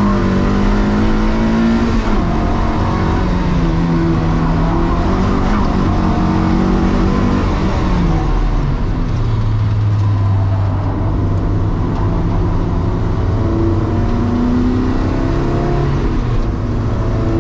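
Toyota MR-S (MR2 Mk3) 1.8-litre 16-valve four-cylinder at hard track driving, heard from inside the stripped cabin, breathing through a K&N panel filter and Manzo silencer. The revs fall about eight seconds in, hold low and steady for a few seconds, then climb again.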